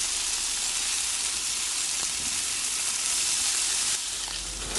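Food sizzling as it fries in hot oil in a pan, a steady hiss that eases off near the end.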